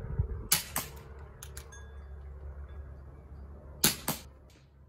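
CO2-powered airsoft Schofield Model 3 revolver firing two shots about three seconds apart, each a sharp crack followed a quarter second later by a second crack. Lighter clicks sound in between.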